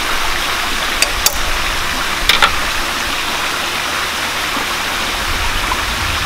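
Corn fritters frying in shallow oil in a pan: a steady sizzle, with a few sharp clicks about one and two and a half seconds in.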